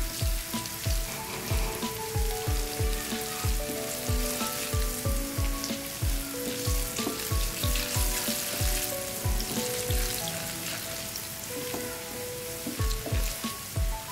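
Chopped garlic, cumin seeds and dried red chillies sizzling in hot oil for a tadka, stirred with a wooden spatula. Background music with a steady beat plays underneath.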